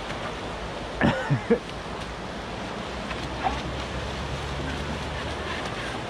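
Fast river current rushing steadily, with a brief vocal exclamation about a second in.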